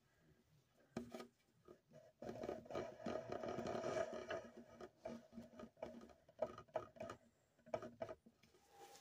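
Banjolele being tuned: a knock about a second in, then a strummed chord ringing for about two seconds, followed by single strings plucked one at a time.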